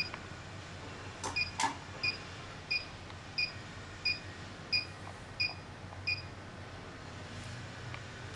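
HIFU beauty machine beeping with each ultrasound shot in its line-carving mode, set to a 0.6-second interval: short high beeps about every two-thirds of a second, stopping about six seconds in. Two clicks come a little after a second in.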